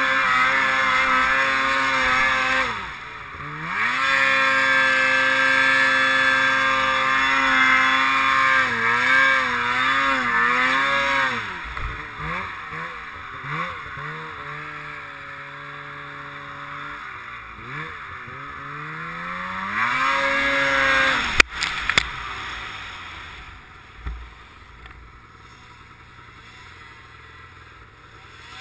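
Polaris RMK snowmobile engine running under throttle, its pitch rising and falling as it is revved up and backed off, loudest over the first half. A single sharp knock comes about two-thirds of the way through, after which the engine runs lower and quieter.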